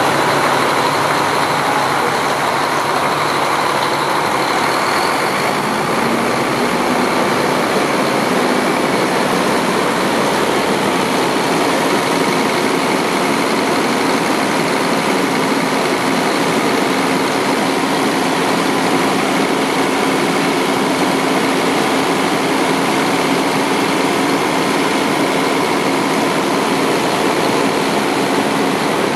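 Diesel engine of a 2003 Autocar Xpeditor truck idling steadily, heard up close with the cab tilted open.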